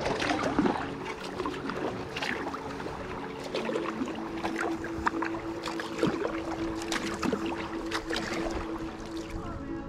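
Kayak paddling: paddle blades dipping into the river and splashing, with frequent short splashes and drips.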